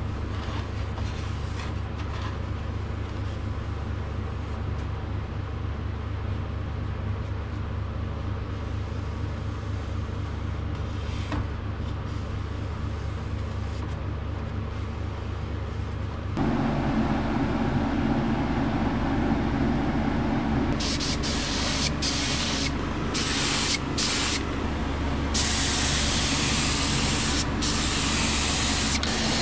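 Steady low machine hum, louder after a cut about halfway through. From about two-thirds of the way in, a compressed-air spray gun hisses in several short trigger pulls with brief breaks, then sprays more continuously.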